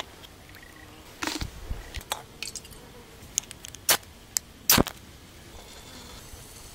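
Scattered sharp clicks and knocks, about seven of them, from camp cooking gear being handled.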